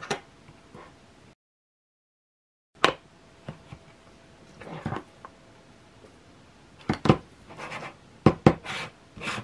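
Plastic clicks, knocks and short scrapes of a DeWalt bit case being closed and handled on a table: the clear polycarbonate lid snapping shut over the yellow case and being pressed down. Drops to dead silence for about a second and a half near the start.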